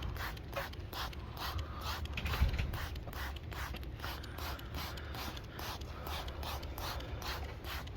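Cloth scrubbed rapidly back and forth over a hard surface, cleaning it with glass cleaner: an even run of scratchy strokes, about three to four a second.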